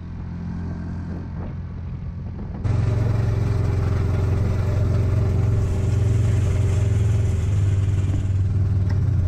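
Side-by-side utility vehicle's engine running steadily, first while driving over sand with some wind noise, then, from a cut about two and a half seconds in, a louder, steadier engine hum close to the microphone.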